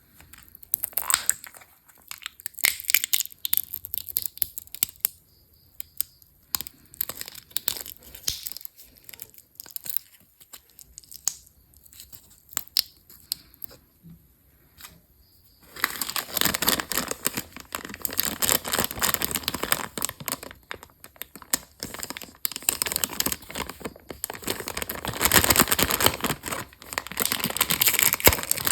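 Candy wrappers being torn open and crinkled by hand. Sharp crackles come one after another at first, then the crinkling turns dense and continuous from about halfway through.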